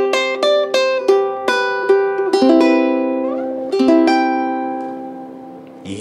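G-Labo concert ukulele with an all-maple body (Vietnamese maple top, sides and back) played by hand: a run of picked notes and chords, a note sliding up in pitch a little past three seconds in, then a final chord at about four seconds left to ring and fade away.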